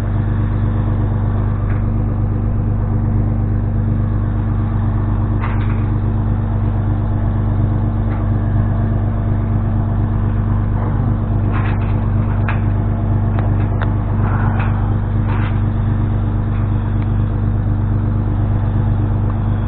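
An engine running steadily with an even low hum, with a few short clanks and clicks in the middle stretch.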